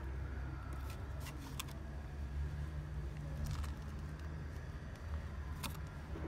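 Steady low rumble of road traffic, with a few short sharp clicks scattered through it.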